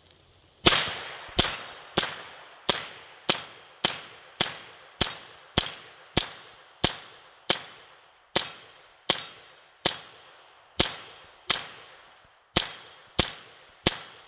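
Rapid semi-automatic fire from a Hammerli Tac R1 .22 LR rifle: about twenty evenly paced shots, roughly three every two seconds, each with a short ringing tail. There is one longer gap in the string near the end.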